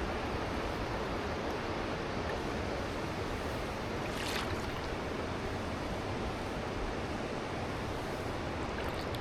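Steady rushing noise of wind and river water on the paddle out, with one short, sharper hiss about four seconds in.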